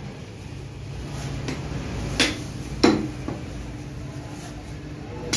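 Meat cleaver chopping beef on a wooden stump block: two sharp chops a little over two seconds in and just under three seconds in, a lighter knock soon after, and another chop at the very end, over a steady low background hum.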